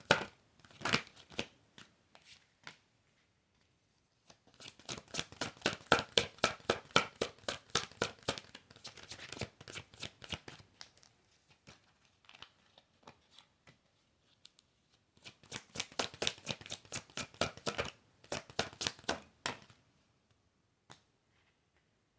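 A tarot deck being shuffled by hand: rapid trains of flicking card clicks in two long runs, one from about four to ten seconds in and one from about fifteen to nineteen seconds in, with quiet pauses between.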